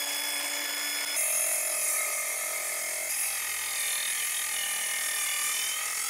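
Cordless DeWalt DCS373 metal-cutting circular saw running at full speed with a steady high whine, cutting through a refrigerator's sheet-metal outer skin. The tone shifts and grows rougher about a second in as the blade takes the load.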